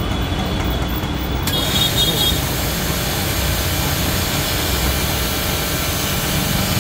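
GMP 2100 3 HP pressure washer running steadily; about a second and a half in, a loud hiss of the high-pressure water jet starts and continues.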